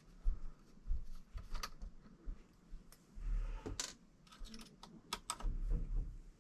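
Irregular small clicks, taps and soft knocks of hands handling small plastic RC truck parts and tools, a few sharper clicks among them.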